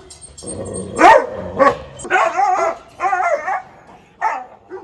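A dog barking in short sharp barks, with longer wavering whining calls between them.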